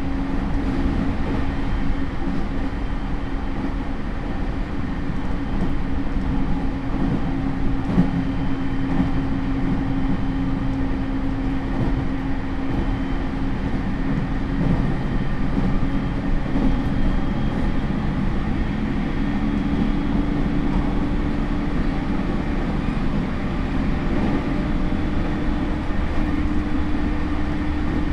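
Running noise inside a JR E231 series electric train's motor car (Hitachi IGBT inverter): wheel and rail rumble with a steady motor hum that rises slightly in pitch about two-thirds of the way through.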